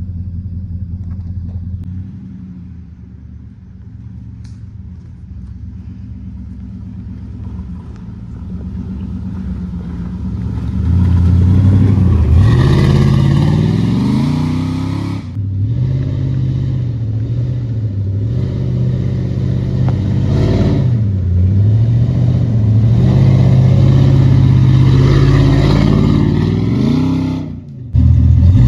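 1998 Dodge Ram 1500's 5.2 Magnum V8 running through headers and a full exhaust, low and fairly quiet at first. From about ten seconds in it is loud and working hard under load on a climb, its pitch rising and falling with the throttle. The sound cuts out briefly twice.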